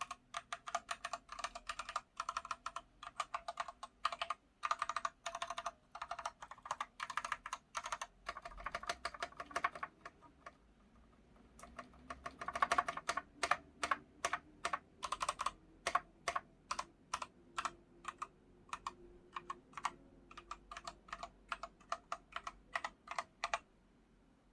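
Aqirys Alumdra TKL mechanical keyboard with Gateron switches being typed on: fast runs of key clicks, a short pause about ten seconds in, then slower, evenly spaced single key presses toward the end.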